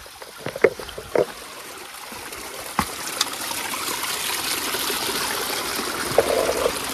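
A small mountain stream trickling among boulders, its rushing growing louder partway through. In the first seconds there are a few sharp knocks of footsteps on loose stones.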